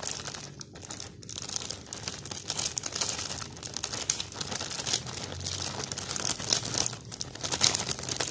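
Thin clear plastic bag crinkling and crackling as its neck is twisted and tied shut by hand, in a rapid run of small crackles.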